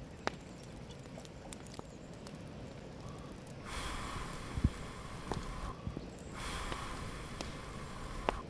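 A person blowing hard into a smoky wood fire under a cooking pot, two long breaths of about two seconds each, to get damp wood burning; small crackles and a knock sound between them.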